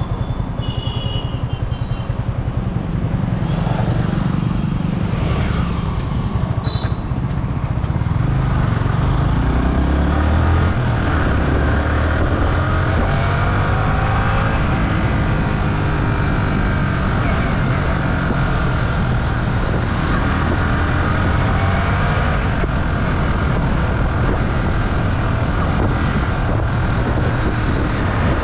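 Yamaha R15 motorcycle's single-cylinder engine running as the bike pulls away and shifts up through the gears, its pitch rising and falling with each gear.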